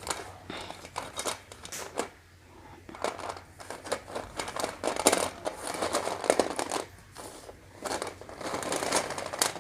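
Packaging of a box of slate pencils being handled: rustling and crinkling with many short clicks, coming in uneven flurries with a lull in the middle.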